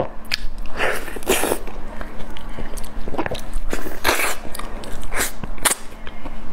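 Close-up eating sounds of soft durian flesh being bitten and chewed, with irregular wet mouth noises about once a second.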